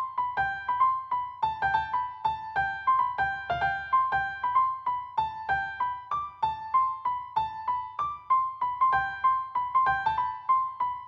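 Background music: a light, plucky keyboard or piano melody of quick, short notes at a steady pace.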